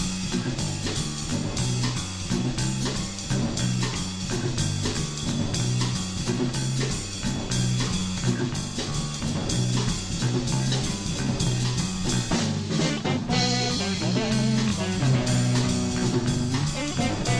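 Closing music for the episode: a band track with drum kit, bass and guitar on a steady beat. About 13 seconds in the drums drop back briefly and a guitar line comes forward.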